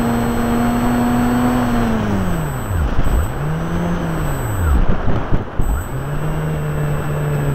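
Brushless outrunner electric motor and propeller of an RC model Cessna 182, heard from on board: a steady drone that winds down about two seconds in, then comes back twice in short surges that die away again, as the throttle is cut and blipped on the landing approach. Wind rushes over the onboard microphone, gusting about five seconds in.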